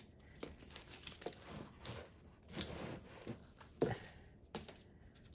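Faint scraping and rustling as stretched canvas panels are slid across a covered tabletop and pushed together by hand, with a few light knocks, the sharpest about four seconds in.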